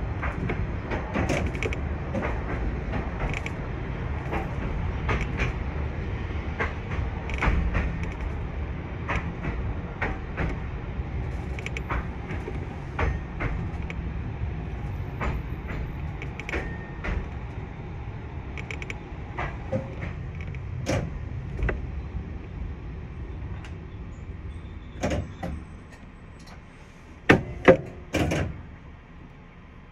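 Tram running on street track: a steady low rumble with frequent short clicks and knocks from the wheels and running gear. The rumble fades as the tram slows, and a few loud sharp clunks come near the end.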